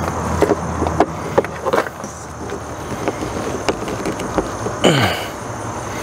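Phillips screwdriver clicking and scraping in short strokes against a stuck screw on an RV compartment-door thumb lock. A short sound falls in pitch about five seconds in.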